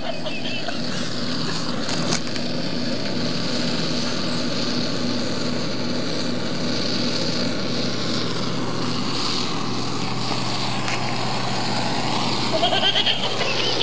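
Handheld gas-cartridge blowtorch running with a steady hiss while its flame burns into a plush toy.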